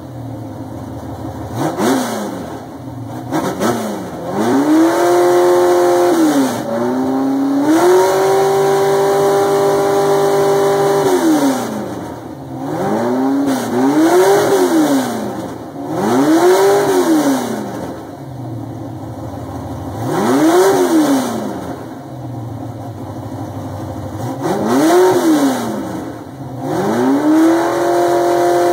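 1975 Camaro Super Street dirt car's 355 cubic-inch small-block Chevy V8 (12:1 compression, 180-degree crossover headers) revved repeatedly from idle: a string of quick blips rising and falling, with two revs held steady at higher rpm for a few seconds, one in the middle and one starting near the end.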